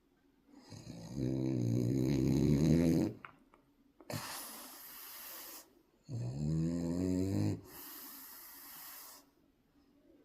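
French bulldog puppy snoring: two snoring breaths, each a low buzzing rumble followed by a softer hissing breath.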